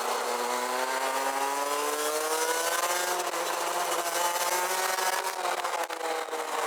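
Rotax Max DD2 kart's 125 cc single-cylinder two-stroke engine heard onboard: revs low just after the start, climbing for about two seconds, holding, then dropping again about five seconds in and starting to pick up near the end. Wind hiss on the microphone runs underneath.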